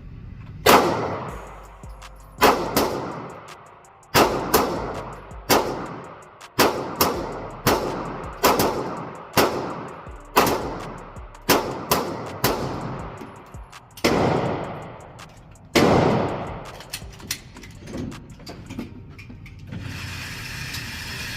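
Gunshots fired one after another at uneven intervals of about half a second to two seconds, each sharp crack followed by a reverberant echo tail that dies away over a second or so. Fainter shots sound in between the loud ones.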